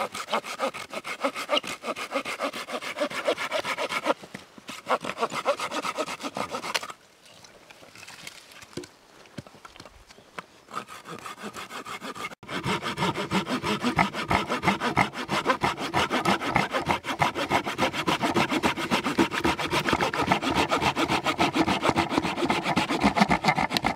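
Hand saw cutting wood with quick, even back-and-forth strokes. It stops for about five seconds in the middle, then saws steadily again.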